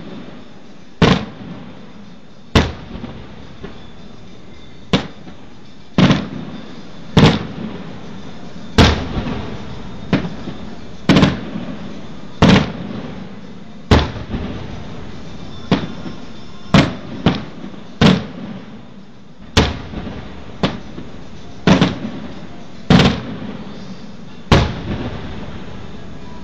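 Aerial firework shells bursting one after another, about eighteen sharp booms at uneven gaps of a second or two, each trailing off in an echo.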